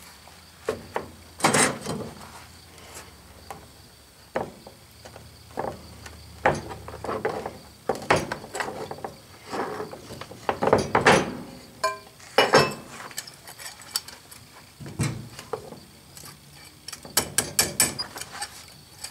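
Irregular metal clanks, knocks and scrapes as a sand-casting flask is opened and steel pliers break up the packed molding sand to dig out a freshly poured lead casting, with a quick run of rattling clicks near the end.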